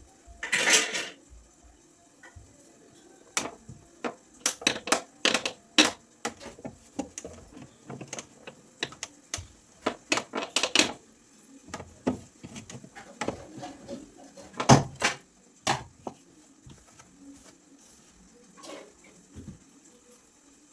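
Irregular knocks and light clatter of hard household items being handled and set down during fridge cleaning, with a couple of longer rubbing sounds; the loudest knock comes nearly 15 seconds in.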